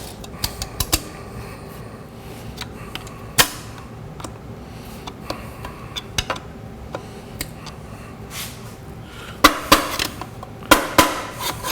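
Steel snap ring for a 4L60E low/reverse clutch pack being worked into its groove: scattered metallic clicks and scrapes, one sharp click a few seconds in, and a cluster of louder clicks and taps near the end as the ring seats.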